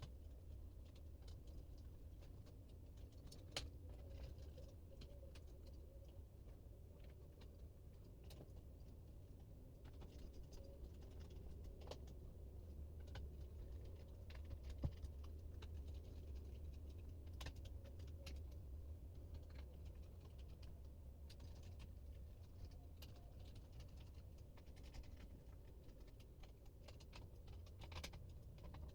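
Very faint, irregular light clicks and taps from small laptop parts and screws being handled, over a low steady hum.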